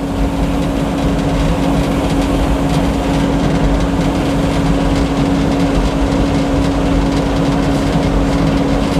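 Old Frick circular sawmill running steadily, its power unit and spinning saw making a constant mechanical drone with one unchanging hum.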